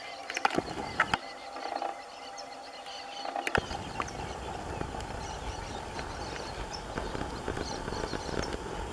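Faint, distant bird chirps over outdoor ambience, broken by a few sharp clicks in the first second or so and another about three and a half seconds in, after which a steady low rumbling noise sets in.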